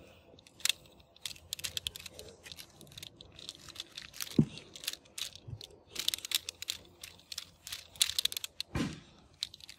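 Plastic toy bicycle model being handled, its pedal crank, chainring and wheels giving clusters of quick plastic clicks and rattles.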